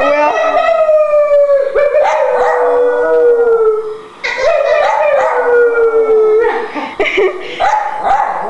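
An old small long-haired dog howling, a voice that sounds like an old man's: two long howls, each sliding slowly down in pitch, then shorter broken howls near the end.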